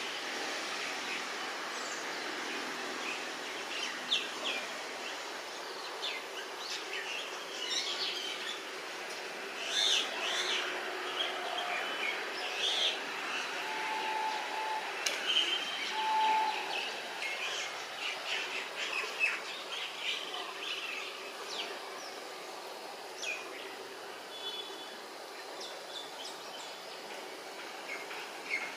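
Many birds chirping and calling over a steady background hiss, with two short steady whistled notes about halfway through.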